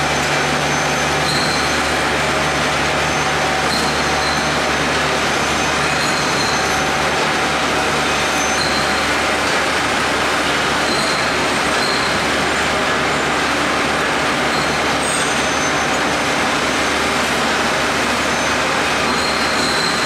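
Rotary bottle washing machine running: a loud, steady mechanical din with brief faint high-pitched tones every second or two.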